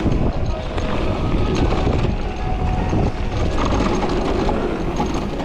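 Wind buffeting the microphone over the rumble and rattle of an electric mountain bike riding a rough trail.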